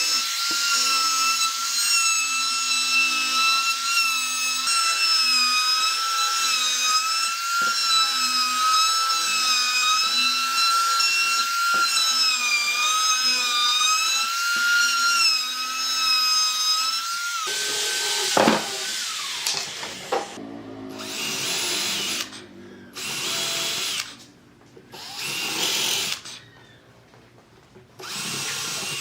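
Handheld electric power tool running with a steady high whine whose pitch wavers as it works. About seventeen seconds in it stops and winds down, followed by several short bursts of harsher noise with pauses between.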